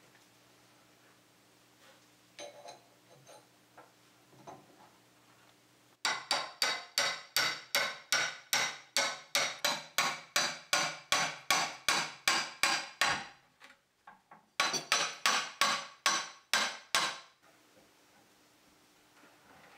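A hammer striking in quick, even blows, nearly four a second, each with a short ringing tail. A run of about seven seconds stops, and after a short pause a second run of about three seconds follows.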